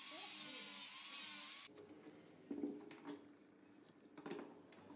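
Angle grinder grinding the steel face of a hammer head, a dense grinding noise over a steady motor whine that stops abruptly about a second and a half in. Then two short metallic knocks, about two seconds apart, as the hammer head is handled against the steel vise jaws.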